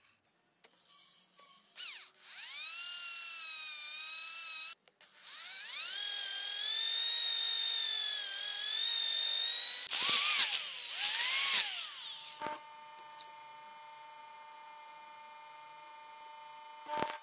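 Electric hand drill drilling into a steel tube: the motor whines up, runs steady, stops briefly and runs again. It ends in a couple of seconds of loud grinding and squealing as the bit works through the metal. A steady electrical hum follows in the second half.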